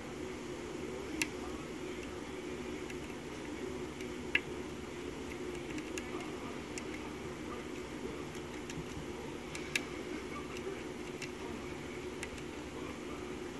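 Lock pick working the pin stack of an Arrow six-pin key-in-knob lock cylinder: scattered small, sharp clicks, the clearest three about a second in, past four seconds and near ten seconds, over a steady low background hum.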